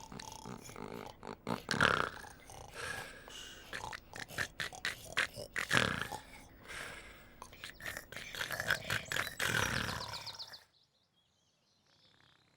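Teletubbies snoring as they sleep: a run of irregular, repeated snores that stop abruptly about ten and a half seconds in.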